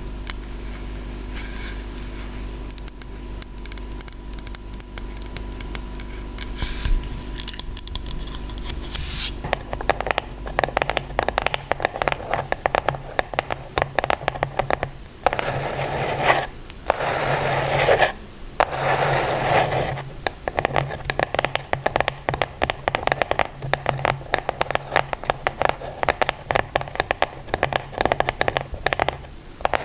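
Close-miked ASMR scratching: a dense run of quick, fine scratch strokes that changes, about a third of the way in, to a fuller, lower scratching with a couple of brief pauses.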